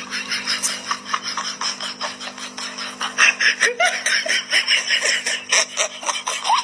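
A person laughing in quick, breathy bursts that grow louder from about three seconds in, over a steady low hum.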